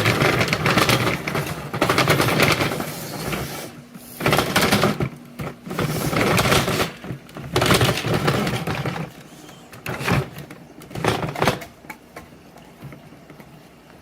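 Ladder being brought over and set up: irregular knocks and rattles that come and go, heaviest in the first three seconds.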